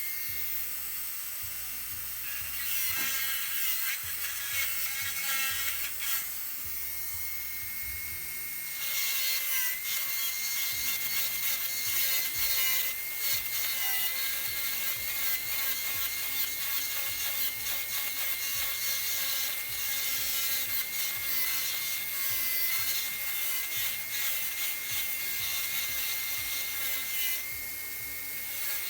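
Dental handpiece running with a steady whine, its bur grinding on a lower molar while the outline of a class I cavity is shaped. Background music with a low bass line plays underneath.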